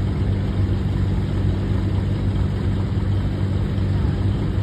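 Farm tractor engine idling steadily with a constant low hum.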